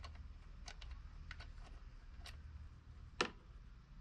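Scattered light metallic clicks and ticks from a 6mm Allen wrench working the handlebar riser bolts, with one sharper click a little after three seconds in, over a steady low hum.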